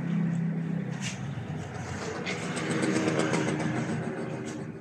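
A motor vehicle engine running. Its pitch drops away in the first second and rises again about three seconds in, with a couple of light clicks.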